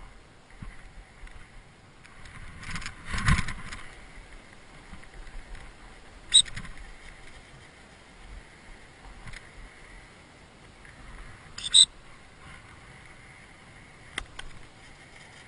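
Two short, shrill blasts of a dog-training whistle, about five seconds apart, give signals to a retriever working away from the handler. About three seconds in there is a brief rustling bump of clothing or handling against the head-mounted camera.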